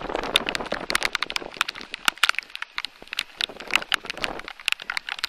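Raindrops striking close to the microphone: irregular sharp ticks and crackles, several a second, over a soft hiss of rain.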